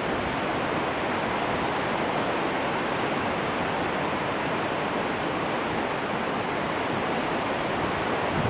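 Upper Yosemite Fall, a steady, even rush of falling water with no break or change.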